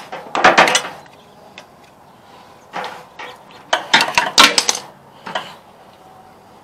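Small mower parts clattering and clicking in four short bursts as the air-cleaner (breather) housing and its hoses are handled and fitted back onto the carburetor.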